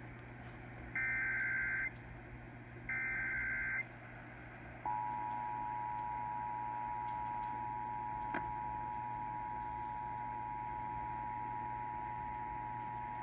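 Emergency Alert System tones received over AM radio: two short, shrill bursts of SAME digital header data about a second apart, then the steady two-tone EAS attention signal held for about eight seconds. This is the opening of an EAS activation that announces a flash flood warning.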